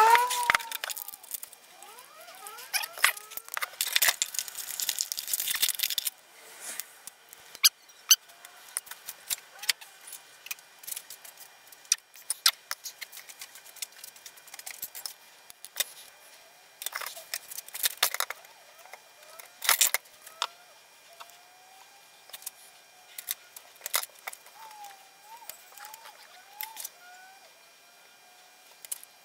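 Scattered light clicks, taps and clatter of objects being handled and set down on a workbench, with faint short rising and falling whistles in between.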